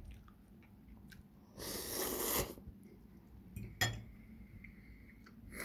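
A man chewing crunchy biscuits with his mouth closed, with small clicks. About two seconds in comes a brief rush of noise that is the loudest sound.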